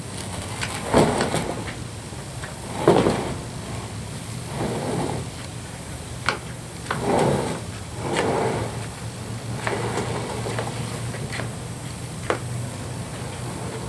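High-density polyethylene canoe hull being hauled out and dragged over wooden dock boards: a series of irregular scrapes and knocks as the plastic slides and bumps on the wood, the loudest about a second and three seconds in.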